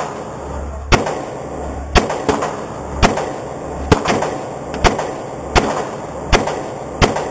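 Glock pistol fired at a steady pace, about eight shots roughly a second apart, each crack followed by a short echo off the walls of an indoor range.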